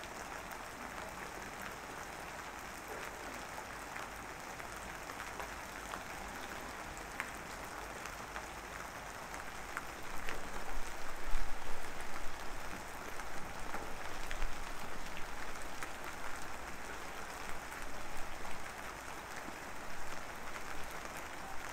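Steady crackling hiss, with irregular louder knocks and rustles from about halfway through as a hard epoxy-resin tray is handled.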